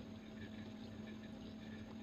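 Quiet room tone with a low steady hum.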